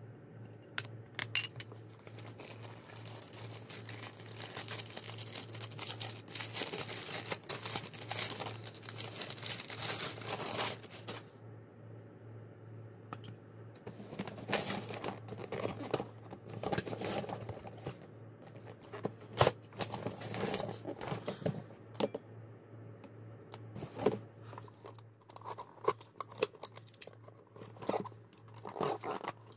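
Packing paper crinkling and rustling as purchases are unwrapped and handled, with bursts of tearing and small knocks; the crinkling is thickest for a few seconds near the start, then comes in shorter bursts. A low steady hum runs underneath.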